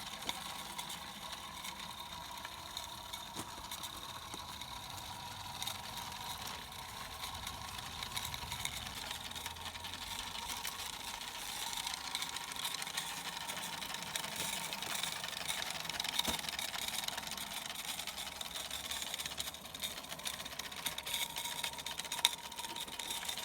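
3D-printed 16mm-scale live steam locomotive running, a steady hiss with a fast, fine ticking and rattle.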